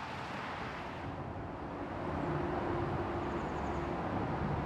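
Motorway traffic: a steady rush of passing cars and trucks that grows a little louder about two seconds in, with a steady low hum joining in the middle.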